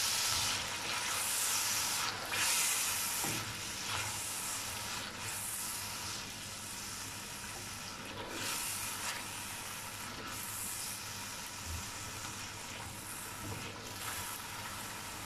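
Chicken, yogurt and lemon juice sizzling in a karahi while a silicone spatula stirs and scrapes through the mix. Stirring strokes come every second or two over a steady frying hiss, loudest in the first few seconds.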